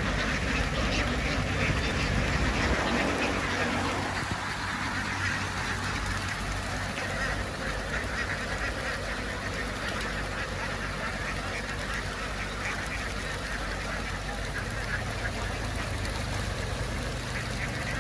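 A large flock of domestic ducks quacking continuously in a dense chatter, louder for the first few seconds. A low steady engine hum runs underneath.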